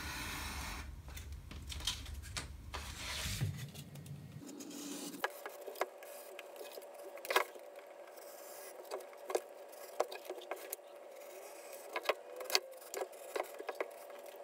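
X-Acto craft knife cutting away the excess watercolor paper along the edge of a wooden cradled board: faint scraping and rubbing with scattered small clicks and taps. A low rumble underlies the first few seconds.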